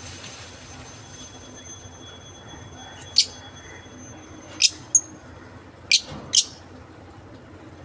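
Small pet parrots giving short, shrill chirps: five quick calls, spread over a few seconds in the second half.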